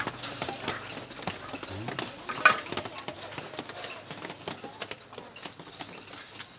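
Scattered clicks and knocks of objects being handled and bumped, the loudest a sharp knock about two and a half seconds in, with faint voices underneath.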